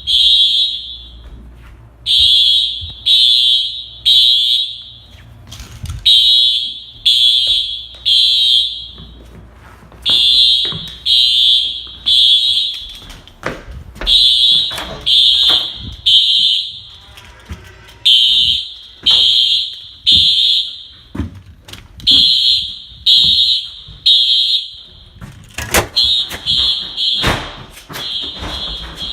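Dormitory fire alarm sounding the temporal-3 evacuation signal: three short, high-pitched beeps, then a pause, repeating about every four seconds.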